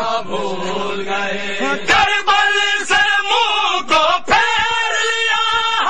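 Men's voices chanting a noha, a Shia mourning lament; about two seconds in the chant becomes louder, marked by sharp beats about once a second.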